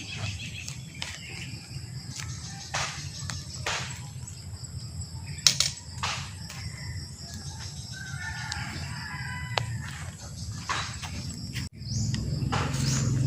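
Scattered sharp clicks and knocks over a steady low hum, with a few short bird chirps.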